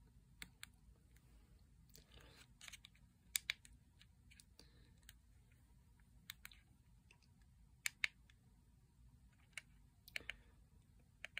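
Faint, scattered clicks of the tiny keys on an M5Stack Cardputer's keyboard being pressed one at a time, about a dozen irregular taps, as the firmware launcher is reset and its file list scrolled.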